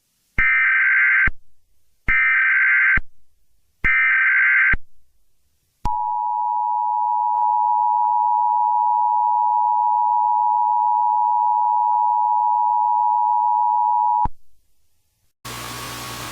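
Emergency Alert System tones: three buzzing bursts of SAME header data, each about a second long, then the steady two-tone attention signal held for about eight seconds. The data bursts carry the coded alert details for receivers, and the attention tone announces that an emergency message follows. Near the end a low hum and hiss of the broadcast background comes in.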